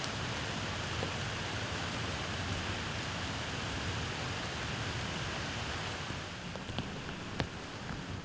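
Steady rain falling on a creek's surface and the leaves around it: an even hiss, with a few single drops standing out sharply near the end.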